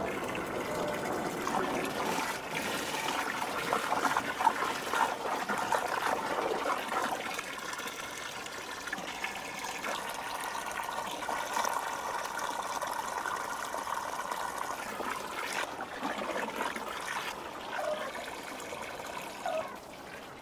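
Water running from a garden hose into a large plastic tote, filling it steadily; the water lands on rabbit manure to make manure tea.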